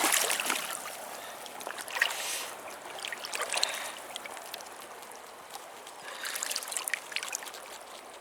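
Water splashing and trickling in irregular spells, busiest at the start and again near the end.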